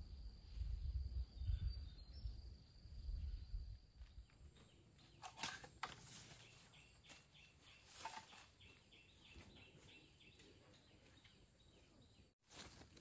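Faint countryside ambience with small birds and insects calling. Low rumbling runs through the first few seconds, then a run of short chirps comes a few times a second.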